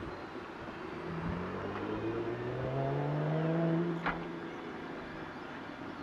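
A motor drone rising steadily in pitch for about three seconds, then dying away about four seconds in, followed by a single sharp click.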